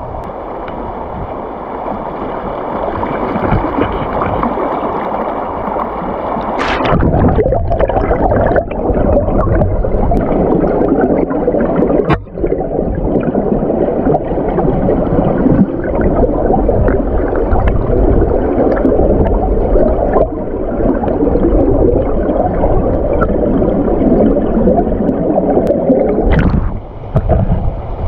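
Mountain stream water heard through a camera held underwater: a steady, muffled gurgling rush, fuller and louder from about seven seconds in.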